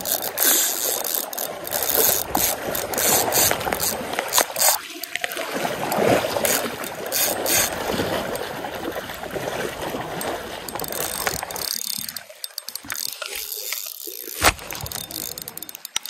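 Spinning reel's drag clicking rapidly as a hooked king salmon runs with the current and strips line off the spool, with one louder click near the end.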